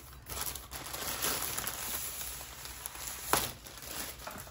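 Packaging wrapper crinkling and tearing as it is pulled open by hand, with one sharp snap a little over three seconds in.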